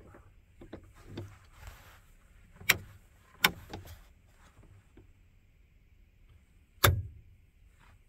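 Lighted rocker switches for front and rear auxiliary lights being pressed: a few sharp clicks, two about a second apart near the middle and a louder one near the end.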